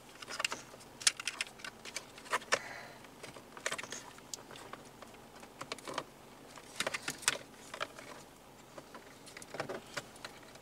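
Scattered sharp plastic clicks and rattles, in small clusters, as a steering-column clock spring is handled and worked loose and its connector unplugged.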